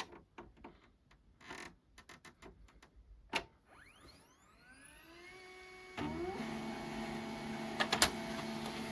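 Samsung ML-1640 laser printer starting a test page: after a few faint clicks, a motor spins up with a rising whine, and about six seconds in the printer's mechanism starts running with a steady hum, with a couple of sharp clacks near the end.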